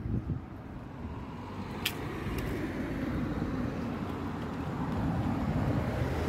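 A car approaching on the road, its engine and tyre noise growing steadily louder. There is a sharp click about two seconds in.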